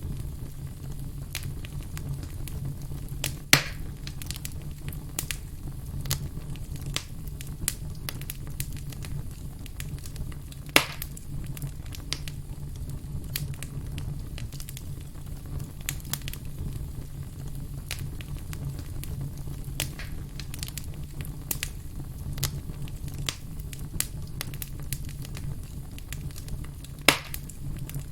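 Campfire burning with a low steady rumble and constant small crackles, broken by three loud, sharp pops from the burning wood.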